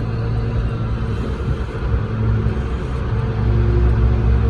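Heavy machinery engine running steadily at a constant speed, a low rumble with a steady hum.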